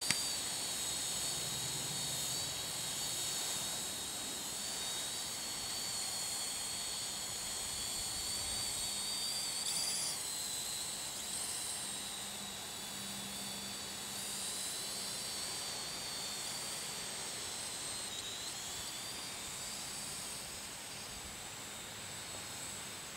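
Parrot drone's electric motors and propellers whining in flight: a steady high-pitched whine of several close tones that shifts in pitch about ten seconds in and again near eighteen seconds.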